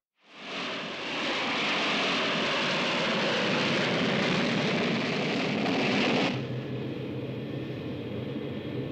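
Four-engined jet airliner in flight: a loud, steady rush of jet engine noise fades in at the start and cuts off suddenly about six seconds in. A quieter, steady low hum of the aircraft interior follows.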